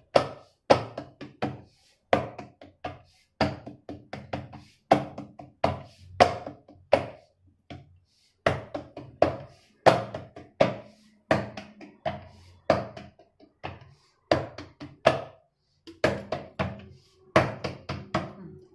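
Palms patting and pressing ragi dough flat on a round wooden rolling board: a steady run of knocks and taps, one or two a second, each with a short ring after it.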